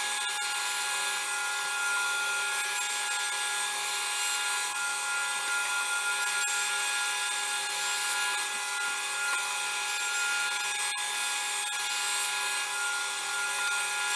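Planer thicknesser running on its jointer side, its motor and cutterhead giving a steady whine of several constant tones, while a sapele board is fed on edge along the fence over the cutterhead to plane its face edge square.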